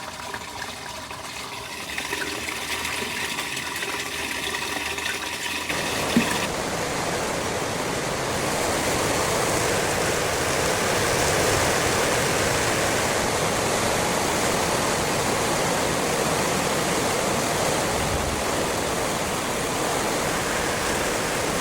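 Wastewater rushing out of a drain line that has just been cleared of a clog. The flow is steady, and it gets louder and fuller about six seconds in.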